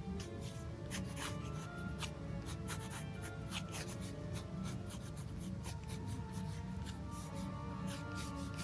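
Ink pen nib scratching across sketchbook paper in many short, quick strokes, over background music.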